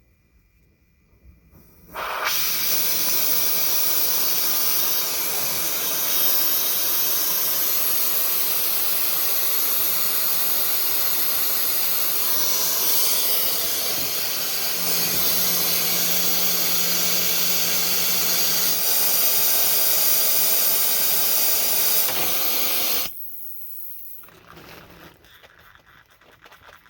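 Loud steady hiss of gas rushing out under pressure. It starts abruptly about two seconds in, runs for about twenty seconds and cuts off suddenly near the end.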